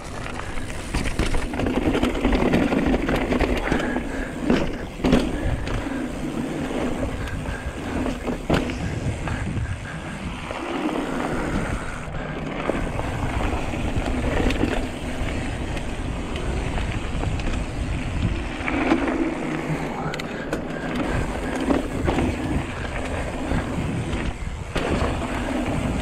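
Hardtail mountain bike descending a dirt trail: tyres rolling over the ground with a steady rush of wind on the microphone, and scattered knocks and rattles from the bike over bumps.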